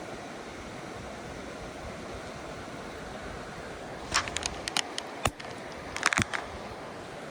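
Steady rush of a mountain creek, with two short clusters of sharp clicks and knocks, one about four seconds in and one near six seconds.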